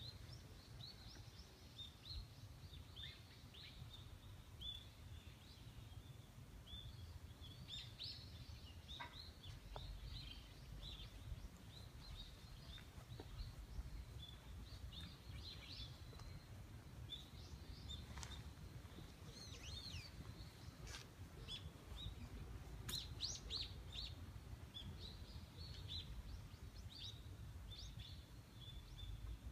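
Faint outdoor ambience of small birds chirping, with many short high calls scattered throughout, over a steady low rumble.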